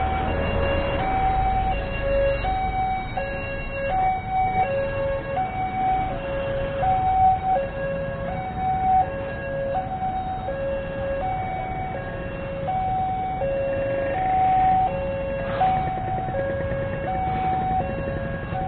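Railway level-crossing warning alarm sounding, a two-tone electronic signal alternating steadily between a higher and a lower note, each held under a second, warning of an approaching train. Motorcycle engine and road traffic rumble underneath.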